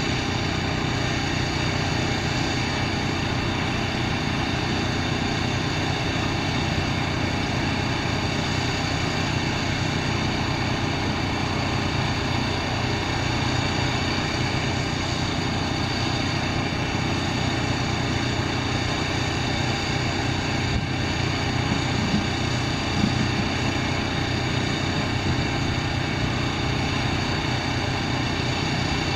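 Small gasoline engine running steadily at one constant speed.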